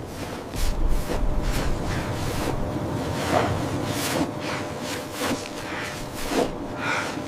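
Blizzard wind blowing hard, with repeated short gusting whooshes.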